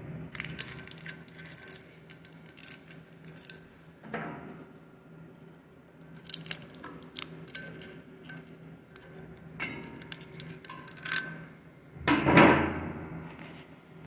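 Plastic shrink-wrap crinkling and tearing as a pocket knife cuts and picks it off a refrigerant cylinder's valve, with scattered small clicks and scrapes and a louder rustle about twelve seconds in.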